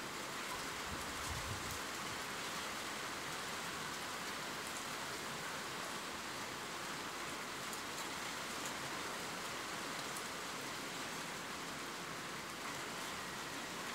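Steady rainfall, an even hiss of many drops with no let-up.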